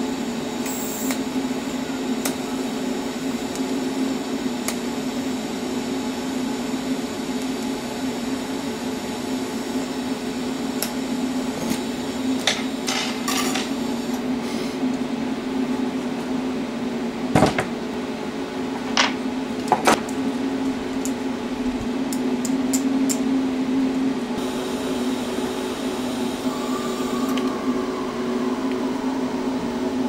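TIG welder humming steadily as its arc melts the end of a short piece of steel all-thread into a small ball, with a few sharp clicks about two-thirds of the way through.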